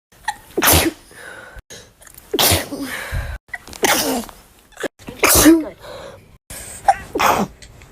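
People sneezing one after another: five sharp sneezes, each a short loud burst, spaced about a second and a half apart.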